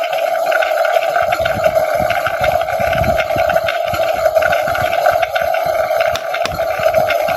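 Toy kettle and induction stove playset's electronic sound effect: a steady hum and hiss from a small speaker, with light clicks of plastic parts being handled.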